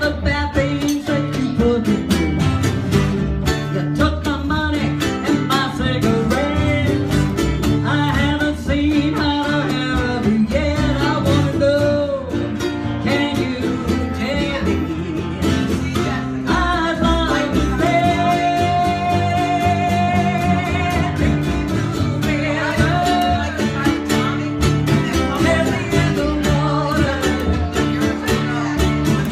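Music: a song with singing and guitar, including one long held note about two-thirds of the way through.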